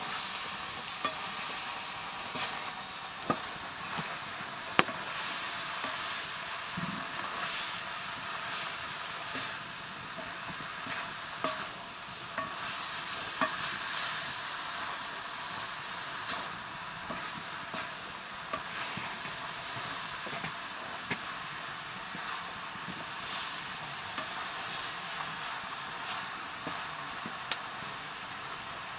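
Mushrooms sizzling as they fry in a metal pan, stirred with a wooden spatula that scrapes and knocks against the pan, giving a steady hiss dotted with short clicks.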